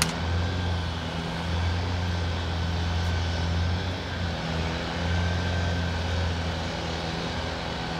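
Room tone recorded on a film set: a steady low hum and rumble of the building's machinery with a faint even hiss above it. A single short click comes at the very start.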